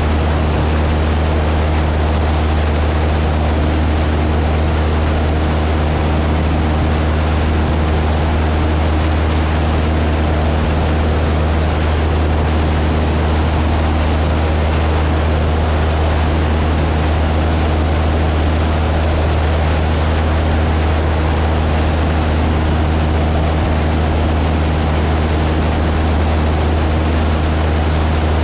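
Cessna 172's piston engine and propeller in steady cruise: a constant, unchanging low drone with a hiss of rushing air over it.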